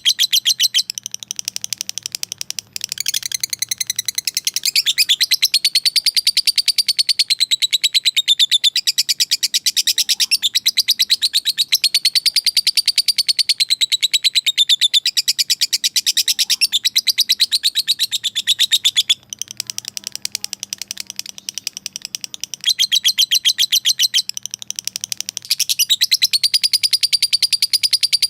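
Lovebird giving its long 'ngekek' chatter, a very fast run of shrill repeated chirps that goes on almost without a break, stopping briefly a few seconds in and again about two-thirds of the way through. It is the call of a bird challenging a rival.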